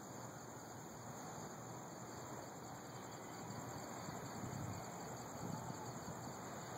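Crickets chirping steadily at night over a low hiss, with a faint low rumble of distant thunder swelling about four seconds in.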